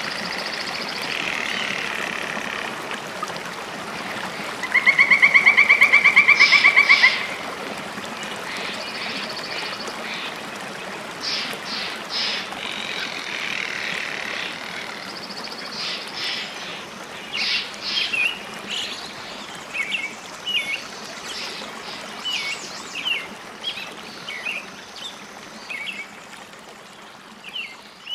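Birds chirping and calling over a steady rush of running water. About five seconds in, a loud, fast trill lasts about two seconds; short chirps come more often in the second half.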